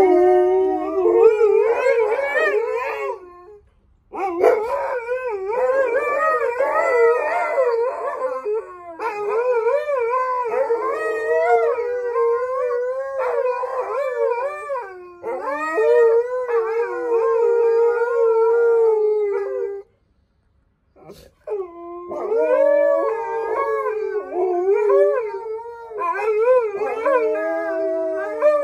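Two Alaskan malamutes howling together in long, wavering, overlapping howls. They break off briefly about four seconds in, and again for a second or two around twenty seconds in.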